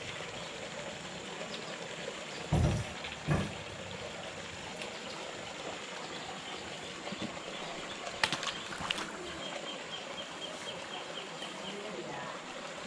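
Steady rush of water pouring into a pond, with two dull thumps about two and a half seconds in and a few sharp clicks about eight seconds in.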